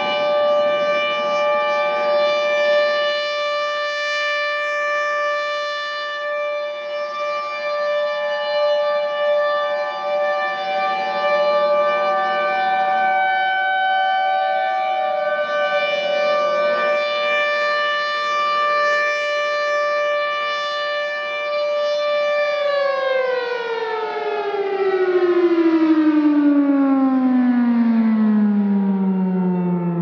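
Two outdoor warning sirens sounding steady alert tones together: the Federal Signal 2001-130, an electromechanical siren with a rotating horn, and a Federal Thunderbolt. Partway through, one tone slides lower, and from about three quarters of the way in the sirens wind down, their pitch falling steadily as they coast to a stop at the end of the test.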